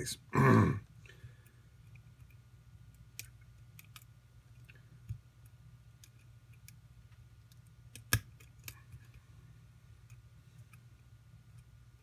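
Faint, scattered ticks and clicks of a hook pick working the pins of a Bronx Lock Picker 'Just for Fun' pin-tumbler lock held under heavy tension. One sharper click comes about eight seconds in, which is the click of pin five setting.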